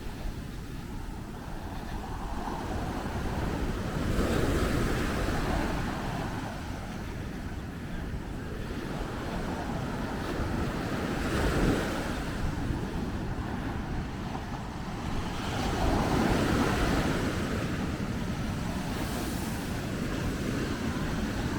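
Ocean surf breaking on a beach, swelling and easing in surges every few seconds, with wind rumbling on the microphone.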